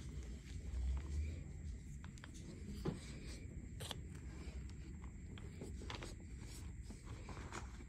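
Hands crushing and raking dry, crumbly chunks of blue cornstarch and gym chalk mixed with glitter, with many small crunches and crackles.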